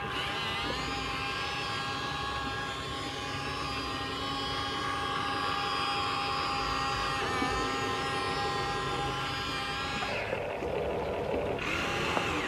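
Huina 1593 RC excavator's small electric motors and gearboxes whining steadily as the machine works, with a change in the sound about ten seconds in.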